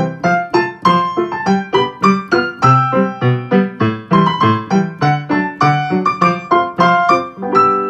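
Background music: a piano tune of short, quick notes.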